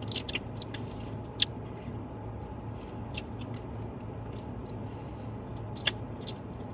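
A person biting and chewing a sauced fried chicken wing, with scattered short wet mouth clicks and smacks.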